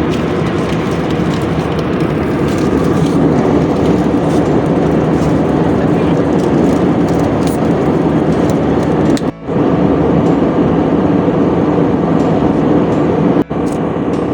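Steady jet engine and airflow noise heard inside an airliner cabin, a constant deep rush with two brief dropouts, about nine and thirteen and a half seconds in.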